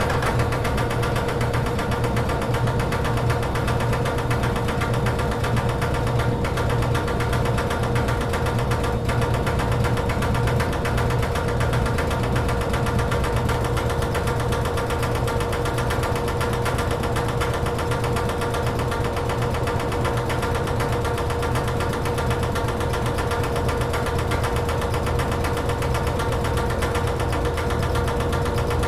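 A motorized machine running steadily, with a constant mid-pitched hum and a fast, even rattle.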